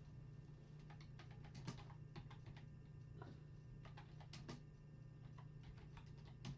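Faint, irregular light clicks and taps of trading cards and their plastic holders being handled, over a steady low hum.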